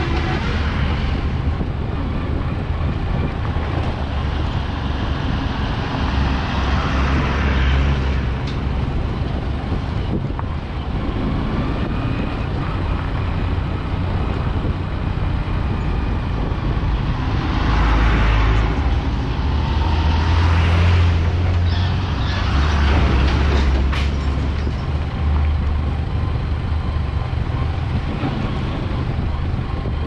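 Steady drone of a vehicle's engine and tyres on a rough dirt road. Oncoming trucks and a pickup pass with louder rushing swells several times, most strongly in the second half.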